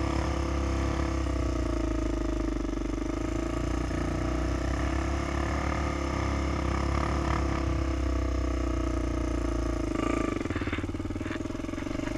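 Honda 400EX quad's single-cylinder four-stroke engine idling steadily, its sound changing about ten seconds in as the quad sets off down the track.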